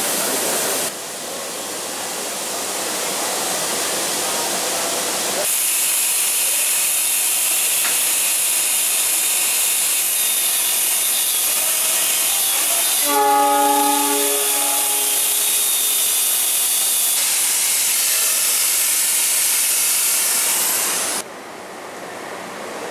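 Railway workshop machinery noise in several abruptly cut clips, with an angle grinder on steel making a bright high hiss through the middle. About thirteen seconds in, a short horn-like pitched tone sounds for about a second.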